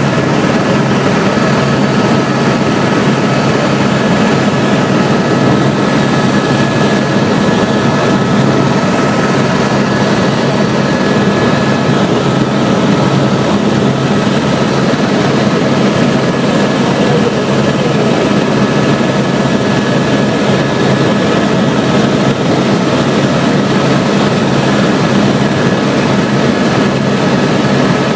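Helicopter in flight, its engine and rotors making a loud, steady drone with a few faint steady whining tones over it.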